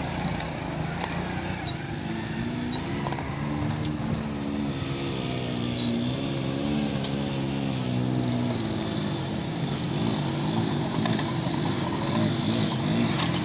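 Small single-cylinder four-stroke Honda motorcycle engine running while riding over a rough dirt road, its pitch rising and falling with the throttle.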